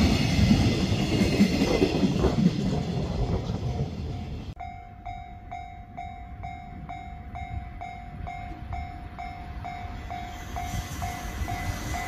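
Container freight train rumbling past on the rails. About four and a half seconds in the sound cuts off abruptly, and a Japanese level-crossing warning bell takes over, ringing an even, repeated ding about two and a half times a second.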